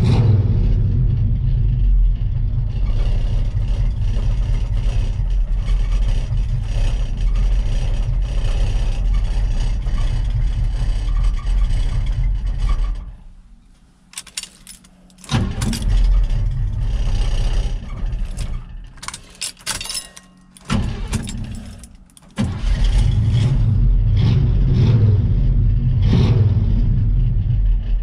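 Engine of a 1978 GM square-body farm truck, heard from inside the cab. It runs steadily, then stops about halfway through. After a short quiet with a few clicks at the ignition, it is restarted: it fires and runs briefly, stops, then catches again and runs steadily until it cuts out at the very end.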